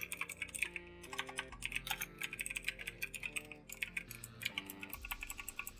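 Fast typing on a computer keyboard, keys clicking in quick irregular runs, over quiet background music.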